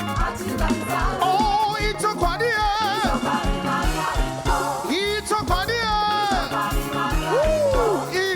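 Upbeat gospel praise music with a steady pulsing bass beat. A lead line above it plays wavering, bending notes with wide vibrato.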